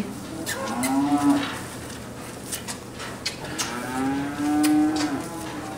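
Holstein calves mooing: two long calls, one about a second in and a longer, louder one near the end, with scattered light knocks.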